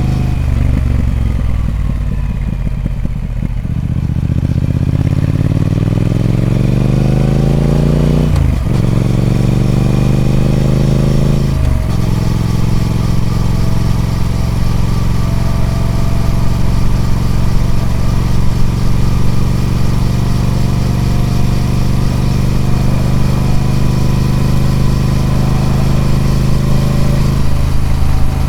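Triumph Speed Twin 1200's parallel-twin engine on its stock exhaust, accelerating hard: the engine note rises, drops at a gear change about eight seconds in, rises again, shifts once more about twelve seconds in, then holds a steady pitch while cruising.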